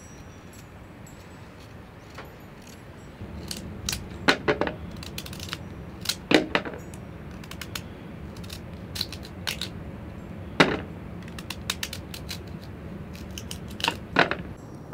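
Small paring knife cutting slices off a beetroot held in the hand. The slices fall into a plastic bowl with irregular sharp clicks and knocks, which start a few seconds in, a handful of them loud.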